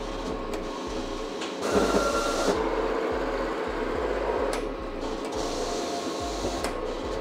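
Mimaki CG130 FX II cutting plotter's carriage and roll-feed motors whirring in short stop-start moves as it automatically searches for the next registration mark before cutting the second label file. About two seconds in, a louder whine runs for about a second.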